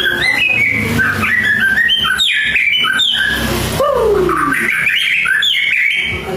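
White-rumped shama (murai batu) singing a rapid run of varied whistled notes that jump up and down in pitch. About four seconds in comes a long falling whistle. This is a full-repertoire song packed with mimicked phrases, the kind used as a master track for training songbirds.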